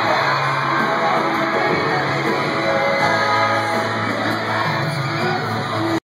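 Live pop singing by a five-member vocal group into handheld microphones over amplified backing music, with audience yelling and screaming mixed in. The sound cuts out completely for a moment at the very end.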